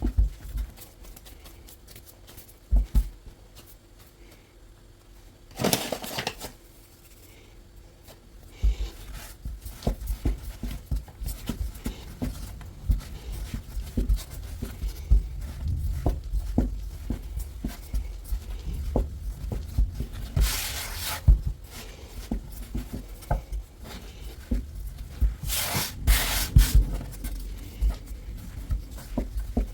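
Hands kneading a stiff semolina-and-water pasta dough on a work surface: a run of soft knocks and sticky pressing sounds, thicker in the second half. Three times a short rushing sound cuts in, like the dough being stretched or torn, or hands rubbing.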